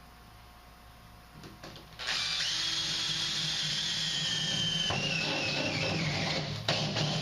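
Makita impact driver running for about five seconds, driving a screw to fasten a sheet-metal filter rack to the furnace; its whine falls slowly in pitch before it stops. A few light clicks come before it starts.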